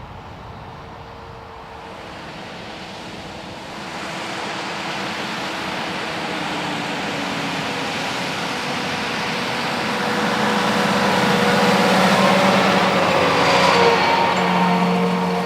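Large John Deere tractor's engine working in the field, drawing steadily closer and louder, loudest near the end.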